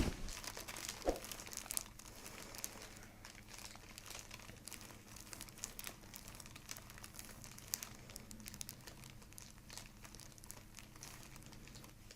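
Soft, scattered rustling and crinkling from bodies shifting on a chiropractic treatment table while the patient's shoulders are stretched.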